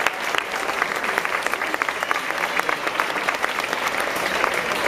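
Audience applauding, with dense, even clapping.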